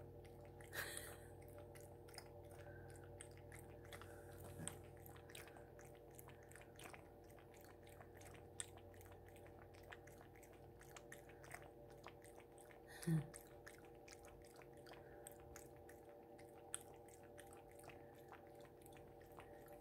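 A cat lapping water from a glass fishbowl: faint, quick wet licks, about four a second, over a steady low hum. There is one brief louder sound about two-thirds of the way through.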